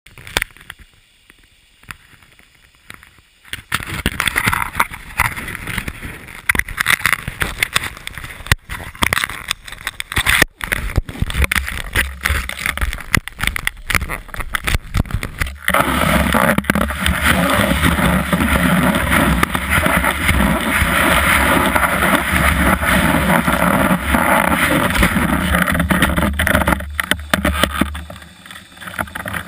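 A snowboard sliding and carving over groomed snow, heard through a camera mounted on the board: a loud, rushing scrape of the base and edges on the snow, with knocks and rattles from the board. The first few seconds are quieter with a few clicks. The scraping then starts and grows denser and louder about halfway through.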